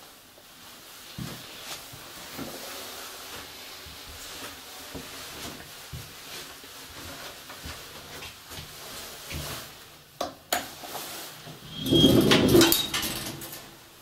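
The lift car's collapsible metal gate being pulled shut. A couple of sharp clicks come about ten seconds in, then a loud metallic clatter and rattle with ringing tones near the end as the gate's bars close.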